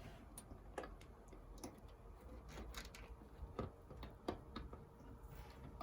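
Faint, irregular small plastic clicks and taps as a CPU power cable is handled and pushed into the motherboard's CPU power socket.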